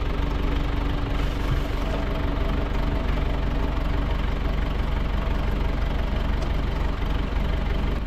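Tractor engine running steadily under load while driving a post hole auger that is boring into the ground. A steady hum sits over the engine noise and drops out about halfway through.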